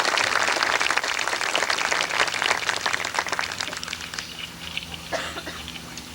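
Audience applauding, thinning out and dying away about four seconds in, with a few last scattered claps.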